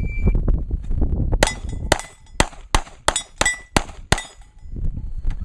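Shot-timer start beep, then after about a second and a half a fast string of about eight pistol shots in under three seconds, each followed by a ringing tail from the steel plates being hit: a draw from concealment and a run through a Steel Challenge stage.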